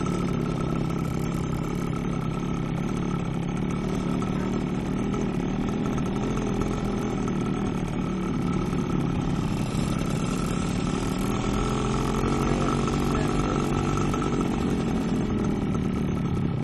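Motorcycle engine running, its pitch rising from about twelve seconds in and dropping back near the end as the revs go up and down.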